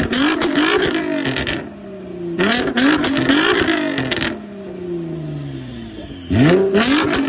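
Nissan GT-R R35's twin-turbo V6 revving through a full titanium exhaust. It is blipped several times in quick succession, its pitch climbing and dropping with each blip, with a sharp rasp and cracks in the loud stretches. The revs then wind slowly down and are snapped up sharply again near the end.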